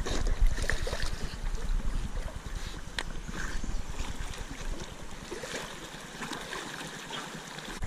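Water sloshing and splashing in a shallow river as a person wades along behind a dog swimming just ahead, with low wind-like rumble on the microphone.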